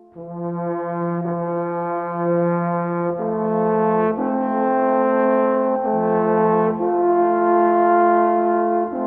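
Brass band playing slow, sustained chords, each held for about a second or more before moving to the next.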